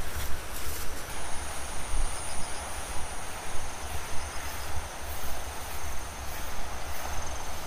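Wind buffeting the microphone in an uneven low rumble, with a steady high-pitched insect trill starting about a second in.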